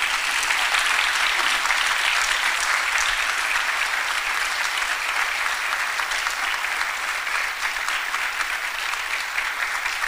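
Church congregation applauding: a long, steady round of dense clapping, which starts suddenly and holds at an even level.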